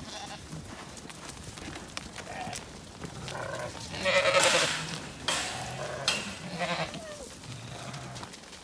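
Zwartbles sheep bleating as the flock moves: several short calls, the loudest and longest about four seconds in, with a few sharp clicks between them.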